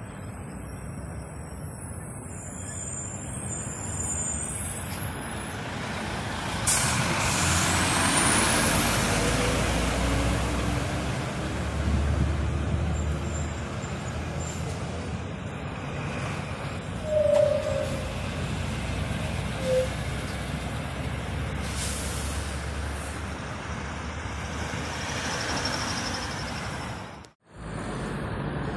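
Heavy lorries passing on a town road: diesel engines running and tyre noise, with a deep rumble that swells as a three-axle dump truck goes by in the middle. A sharp click with a rising hiss comes about a quarter of the way in, and two short tones about two seconds apart follow later. The sound cuts out for a moment near the end.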